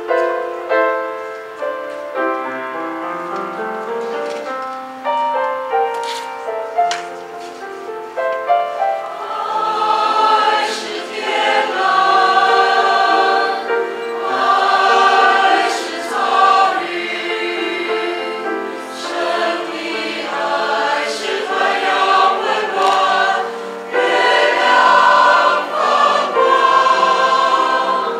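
Mixed choir of men's and women's voices singing a hymn, growing fuller and louder about nine seconds in.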